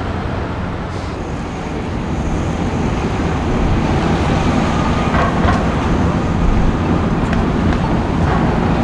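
City street traffic at a busy intersection: a steady wash of engine and tyre noise from passing cars, vans and buses, growing louder a couple of seconds in as the corner comes closer, with a faint high whine in the first few seconds.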